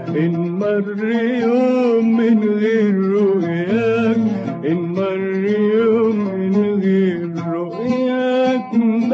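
Male voice singing long, wavering melismatic notes in maqam Kurd, an Arabic song, the pitch bending and holding with vibrato, with no clear words.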